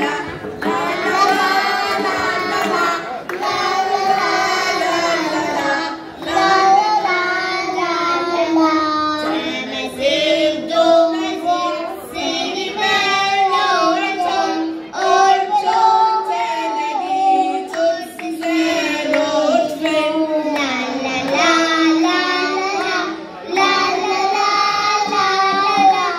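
A group of young children singing a song together into microphones, in one melody, phrase after phrase with brief pauses between.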